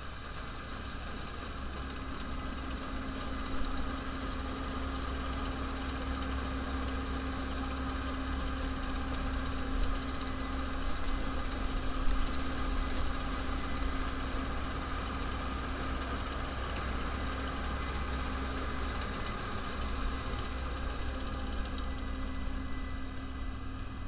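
Case IH 8010 Axial-Flow combine harvester running steadily while cutting oilseed rape: an even engine and threshing-machinery drone with a constant whine on top. It grows briefly louder three times.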